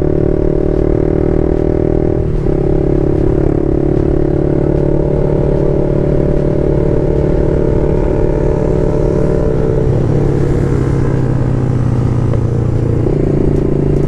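BMW G310 RR's single-cylinder engine running steadily at cruising speed through an aftermarket exhaust. There is a brief knock about two seconds in, and the engine gets louder near the end.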